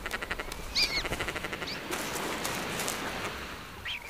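Caspian terns squabbling between nests in a breeding colony: a fast run of ticking notes and a harsh call about a second in, then wing-flapping rustle, and another short call near the end.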